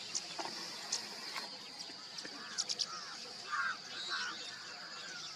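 Forest ambience: a steady high insect drone, with short sharp bird chirps and a few lower arching bird calls in the middle.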